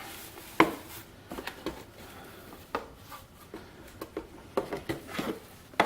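Cardboard box and packaging being handled as the box is opened: scattered rustling with a few short, sharp taps and clicks.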